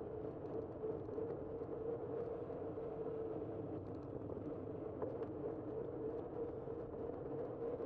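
Steady rolling noise of a bicycle riding along a paved street, with a constant mid-pitched hum and a few faint clicks.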